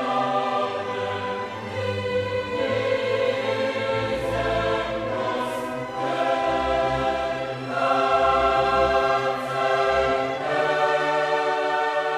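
Background music: a choir singing long held chords over orchestral backing.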